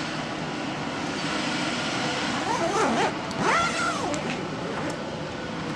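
Steady whoosh of GPU mining-rig fans and a large inline exhaust fan, with a zipper drawn along the hydroponics tent's door flap around the middle, its rasp rising and falling in pitch as it is pulled.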